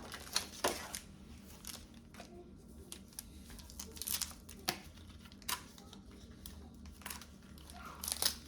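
Foil wrapper of a Pokémon trading-card booster pack crinkling and tearing as it is opened and handled, in short irregular crackles that get loudest near the end.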